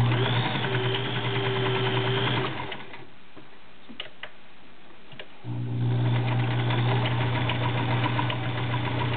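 All-metal Kenmore model 1703 sewing machine stitching through folded denim with a size 16 needle, cutting through it easily. It runs steadily for about two and a half seconds, stops for a few seconds with a few clicks, then runs again.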